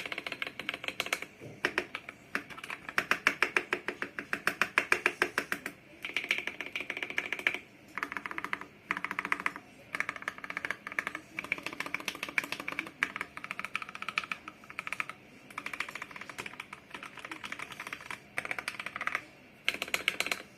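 Mechanical keyboard with lubed switches and stabilizers being typed on quickly, in runs of rapid keystrokes broken by short pauses every second or two. The strokes are loudest a few seconds in.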